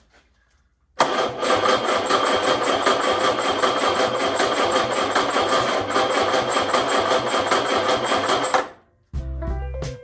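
Ford four-cylinder flathead engine turned over by its 6-volt starter, cranking at an even rapid beat for about eight seconds without catching, then stopping. Music comes in near the end.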